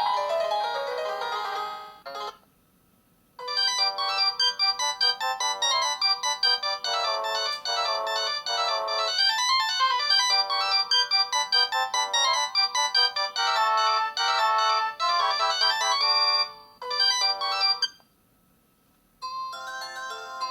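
Ringtones of a MaxCom Strong MM917 3G phone playing through its loudspeaker as a series of electronic melodies. One tune stops about two seconds in, and after a short pause a second plays for around fourteen seconds. After another pause a third begins near the end.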